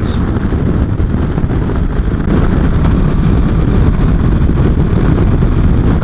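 Kawasaki Versys 650 motorcycle riding at road speed: its parallel-twin engine runs under a steady rush of wind on the microphone. The noise grows a little louder about two seconds in.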